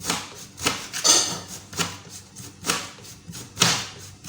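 Knife chopping food on a cutting board: a series of sharp knocks, about one a second, each with a short scrape.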